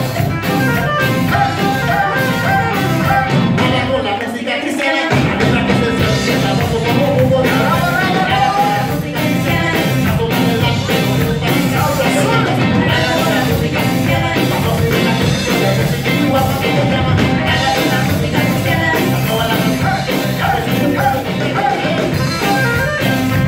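Live band playing loudly with voices singing: drum kit, electric bass and guitar, and trumpets. The bass and drums drop out for about a second around four seconds in, then come back in.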